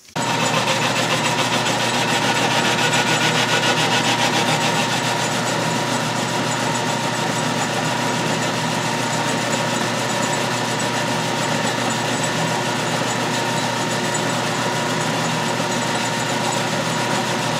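12-inch Atlas/Craftsman metal lathe started up at high spindle speed, its motor and belt drive running with a steady whine while the tool takes a light truing cut on the part mounted on the spindle nose.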